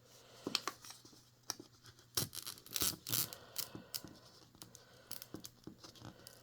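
Plastic wrapping being torn and peeled off a Mini Brands capsule ball, a run of irregular crackles and clicks.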